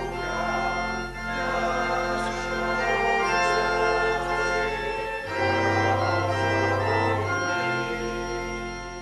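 Church organ playing a hymn in slow, sustained chords over a deep bass, fading out at the close.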